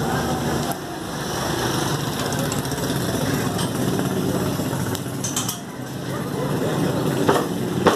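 A motor vehicle engine runs close by, steady with a low hum, over faint background voices. Near the end a butcher's cleaver knocks twice on a wooden chopping block.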